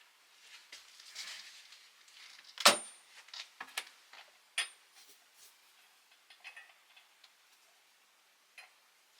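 Scattered clicks and knocks of metal tools and parts being handled, with one loud sharp clink a little under three seconds in and another near five seconds, each ringing briefly.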